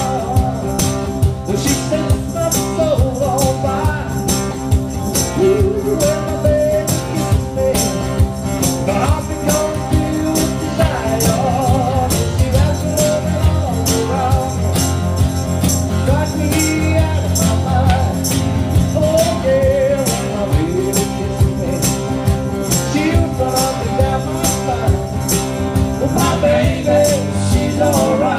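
Live band playing: electric bass guitar with a voice singing over it and a tambourine shaken and struck in a steady rhythm.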